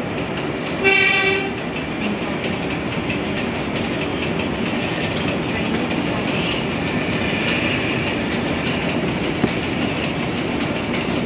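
New York City subway train passing on the adjacent elevated track, with a steady rumble and clatter of steel wheels on rail. A short horn blast comes about a second in, and a high wheel squeal runs from about four to nine seconds in.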